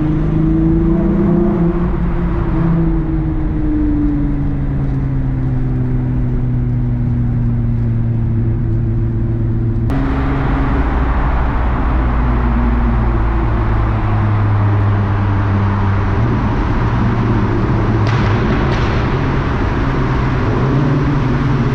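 VR6-swapped Volkswagen Mk3 running at steady motorway cruise, heard from inside the cabin over tyre and road noise. About ten seconds in, the road noise suddenly gets louder and brighter as the car enters a road tunnel.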